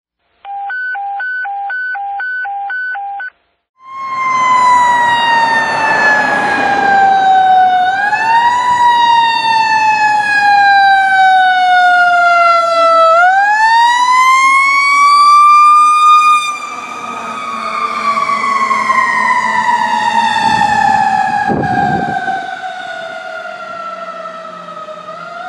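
A short intro of pulsing electronic tones, about two a second. From about four seconds in, a fire engine's Federal Q mechanical siren takes over and is the loudest sound: it winds up twice, the second time longer and higher, and between and after the wind-ups it coasts down slowly in pitch.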